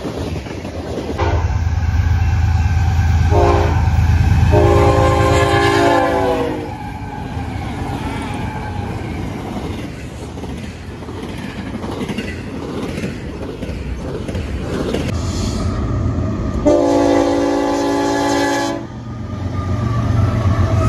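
BNSF freight trains passing at track speed, the cars' wheels rolling on the rails, with a locomotive's air horn sounding a chord of several notes: a short blast about three seconds in, a longer blast around five seconds, and another blast of about two seconds near the end.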